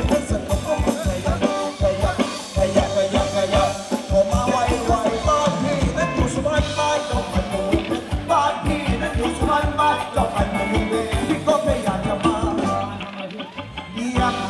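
Amplified Thai ramwong dance music from a live band: a singer over a steady, fast drum beat. It thins out and goes quieter briefly near the end.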